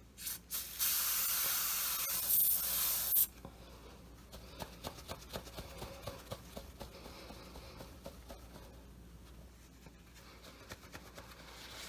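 Preval aerosol spray system spraying body paint: two short spits, then a steady hiss lasting about two and a half seconds that cuts off sharply. Faint clicks and rubbing follow.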